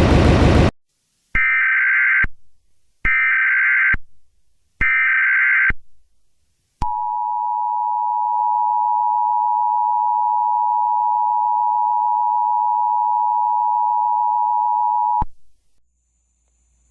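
Emergency Alert System SAME header: three short bursts of warbling digital data tones about a second each, followed by the EAS attention signal, a steady two-tone 853 and 960 Hz sound held for about eight seconds that stops abruptly. A loud noise cuts off within the first second, before the first burst.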